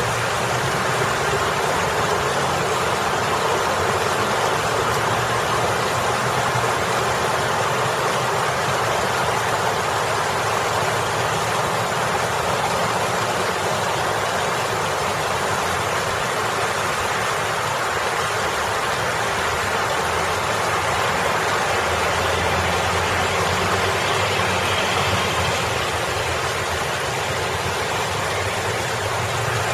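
Water splashing steadily down a boulder water feature into a rocky pool, a constant hiss, with road traffic rumbling past behind it, the rumble swelling in the last several seconds.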